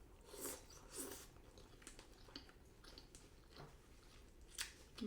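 Close-up eating sounds from a mouthful of sukiyaki: soft chewing with a few short wet mouth smacks, the loudest about half a second and one second in, and another just before the end.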